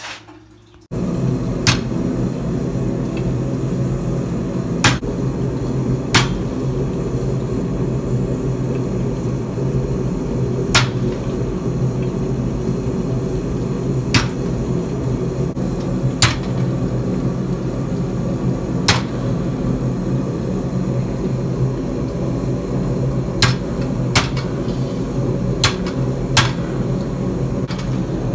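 Power hammer running steadily, its ram landing about a dozen single sharp metal blows at irregular intervals on a hand-held top tool over hot steel. The running noise starts abruptly about a second in.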